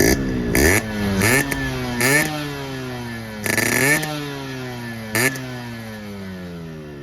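Yamaha RX-series two-stroke single-cylinder motorcycle engine revved in about five quick throttle blips, each sharp rise in pitch falling slowly back toward idle.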